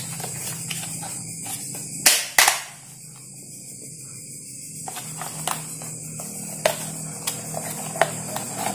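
Hard plastic clacks and knocks from a Philips blender's motor housing being handled and taken apart: two sharp clacks about two seconds in, then lighter scattered taps.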